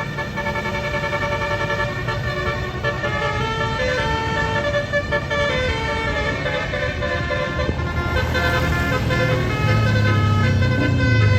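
Indonesian bus "telolet" horn, a set of musical air horns playing a tune in stepped notes, over the bus's running engine, which grows louder in the last couple of seconds.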